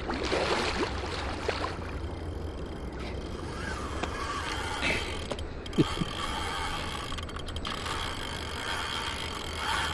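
Large spinning reel's drag ratcheting as a hooked sturgeon pulls line off it, with splashing at the water surface in the first second or so.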